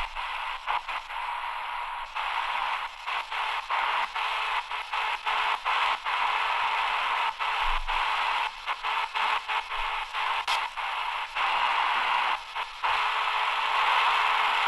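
Shortwave static hissing from the AGPTEK R09 portable radio's speaker as it is tuned slowly across the band, cut by many brief silent gaps as the DSP receiver steps from frequency to frequency.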